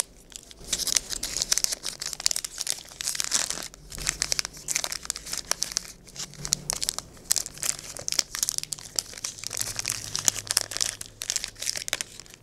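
Wrapper of a 2018 Score NFL jumbo card pack being torn open and crinkled, a dense run of crackling with short pauses.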